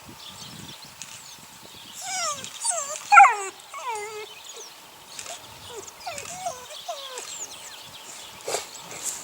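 Eight-week-old puppies whining and yelping in short calls that fall in pitch, a cluster of them about two to four seconds in, the loudest near three seconds, and a few more around six to seven seconds.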